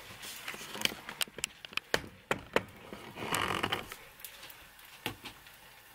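Spoons clinking against a bowl and pan as grated-potato batter is scooped out, a quick run of light clicks with one more later, and a brief hiss about three seconds in.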